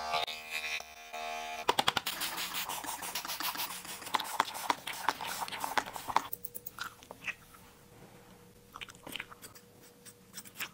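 Haircut sounds: crisp rapid clicking and crackling from a trigger spray bottle being squirted over the hair, then sparse scissor snips through hair near the end.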